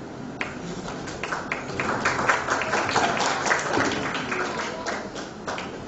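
An audience applauding. The clapping starts about half a second in, swells to its loudest in the middle and thins out near the end.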